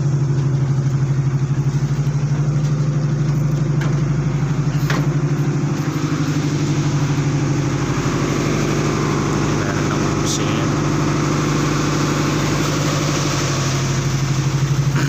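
The tugboat's diesel engine running steadily, a low pulsing drone. A couple of brief knocks come about five and ten seconds in.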